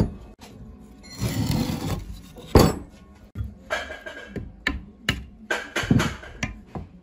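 Metal engine parts knocking and scraping as they are handled and fitted into an aluminium engine crankcase. A sharp knock at the start, a scraping stretch about a second in, a loud knock near the middle, then a run of lighter, irregular clicks and knocks.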